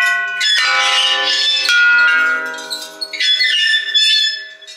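A rusty hanging metal bell clanging as it is struck about four times, each strike ringing on with several clear tones that overlap the next, then fading near the end.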